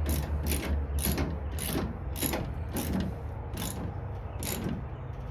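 Ratchet wrench clicking stroke by stroke as it tightens a nut on a luggage-rack bracket bolt. The clicks start about three a second and come slower and further apart as the nut draws tight.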